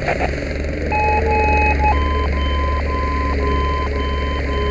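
Electronic alarm beeping, about one beep every half second from about a second in, the pitch stepping up about two seconds in. Under it, a fire hose fog nozzle sprays water, opening with a sudden burst at the start, over a steady low hum.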